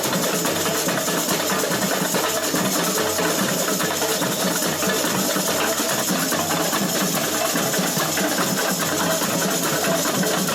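Samba percussion section (bateria) playing a fast, dense, steady groove with no singing.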